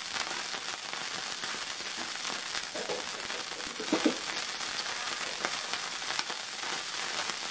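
Melted fat sizzling in a hot nonstick griddle pan on a gas burner: a steady hiss with scattered small crackles.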